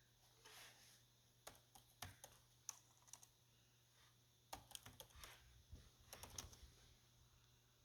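Faint typing on a computer keyboard: scattered keystrokes in a few short runs.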